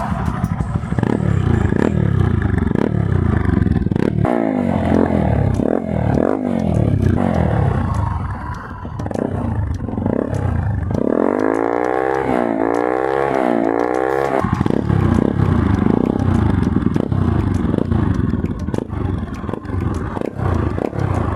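Bajaj Pulsar NS200's single-cylinder engine revving up and down repeatedly through an Akrapovic-style aftermarket silencer with its dB killer fitted, with a run of quick rev blips about halfway through.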